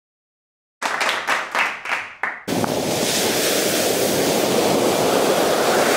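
Ocean surf washing up the beach, a steady rush of breaking waves and foam that takes over about two and a half seconds in. Before it, after a moment of dead silence, comes a short run of uneven thumps and gusts on the microphone.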